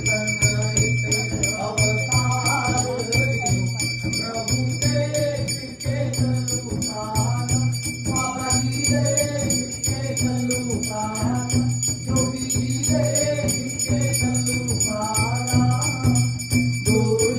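A devotional aarti hymn being sung, with small bells jingling in a steady rhythm throughout over a constant low hum.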